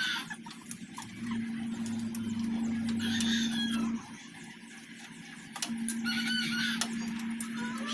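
A rooster crowing in the background over a steady low hum. The hum comes in about a second in, stops about four seconds in, and starts again near six seconds.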